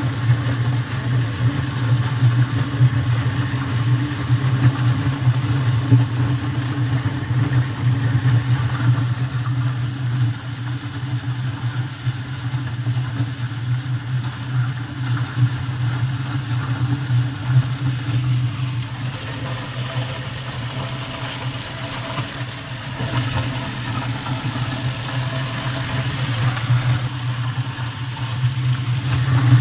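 Corn-sheller machine running, a steady low mechanical hum that holds an even pitch, easing off slightly in the second half.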